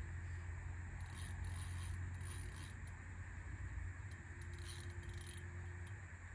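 Fishing reel being worked on a feeder rod, giving irregular small clicks and a scraping mechanical sound, over a steady low rumble.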